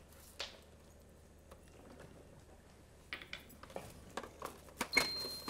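Wooden spoon stirring cuttlefish pieces in a cooking pot, with scattered light knocks and scrapes of the spoon against the pot, most of them bunched together in the second half.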